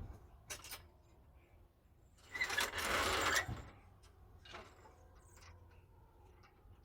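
A brief burst of rapid mechanical rattling lasting about a second, preceded by a couple of light clicks.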